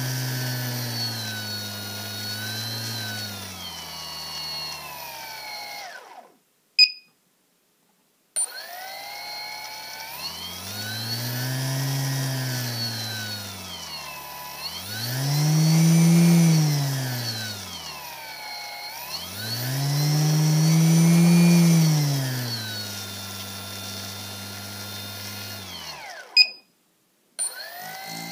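Brushless outrunner motor with no propeller, driven by a SimonK-flashed HobbyKing F40A ESC, running with a pitch that swells and falls back three times as the throttle is raised and lowered. It stops about six seconds in for about two seconds, with a short beep, and stops again near the end, followed by short beeps.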